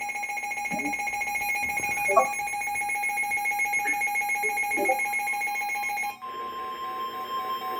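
Weather alert radio sounding its alarm as a steady electronic tone. About six seconds in it changes to the NOAA Weather Radio warning alert tone, a single steady tone near 1 kHz, with a second tone beeping on and off alongside.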